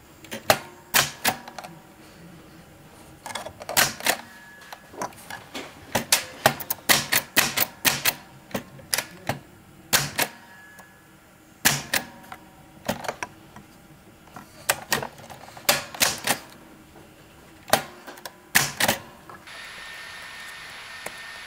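1941 Smith-Corona manual typewriter being typed, sharp key strikes coming in irregular short runs with brief pauses between them, stopping near the end.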